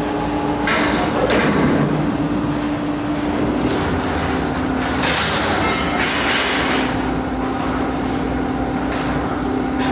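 Steady machine hum in a railway inspection shed, with one constant tone and bursts of hissing about a second in and again from about four to seven seconds in.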